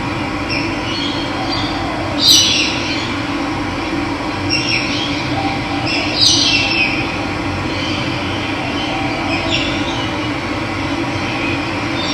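Steady rush of running water, with several short bird calls that fall in pitch over it, the loudest about two and six seconds in.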